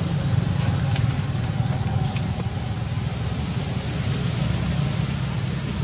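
Steady low rumbling background noise with a few faint ticks.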